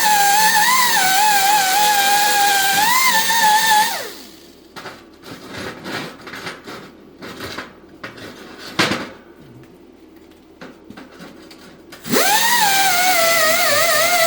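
Handheld electric grinder running at speed on freshly welded steel, cleaning up the weld, with a steady whine and hiss. About four seconds in it spins down and stops; a few light taps and one sharp knock follow, then it spins back up with a quickly rising whine about twelve seconds in.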